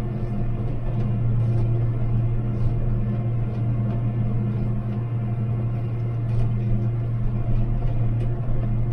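Engine of a crop-spraying rig running at a steady speed under load, a constant low drone with a few faint rattles over it.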